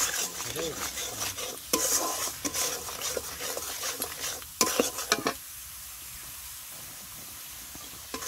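A flat metal spatula scraping and stirring a paste of ground cumin, chilli paste, turmeric and salt through hot oil in a metal karahi, the spices sizzling as the masala is fried down. The strokes stop about five seconds in, leaving a steady sizzle.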